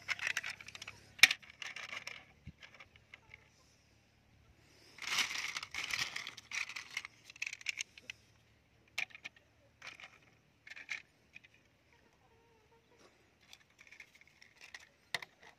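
Plastic toy trucks being handled and set down on rough wooden planks: bursts of clattering and scraping, with a sharp click about a second in and scattered light clicks later on.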